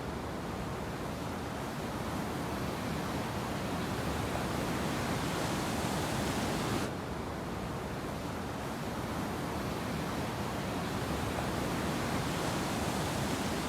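Steady ocean surf on the beach, a continuous wash of noise whose hiss turns duller abruptly about halfway through.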